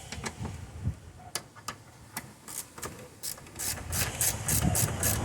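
Ratchet wrench with a 10 mm socket turning a fuse-box mounting bolt. A few scattered clicks come first, then from about two and a half seconds in a fast, even run of ratchet clicks, about four a second.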